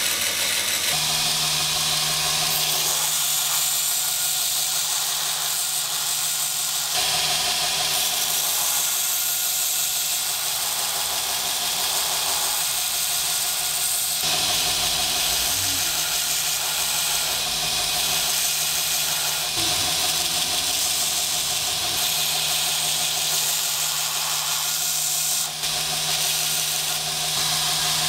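Band saw cutting a sheet of kydex, then a belt grinder sanding its edges: a steady motor hum under a loud hiss of the blade and abrasive belt on the plastic.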